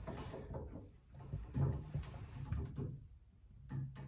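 Faint scattered knocks and clicks of hand tools and fittings being worked loose while disconnecting an old shower pump in a cramped enclosure, with a few brief clicks near the end.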